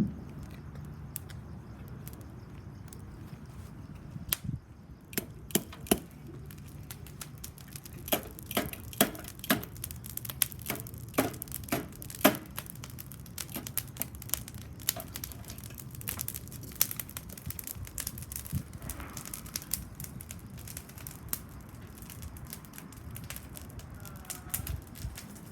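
Fire crackling and popping: irregular sharp cracks, a few at first, then a dense run of loud pops, thinning out toward the end, over a low steady rumble.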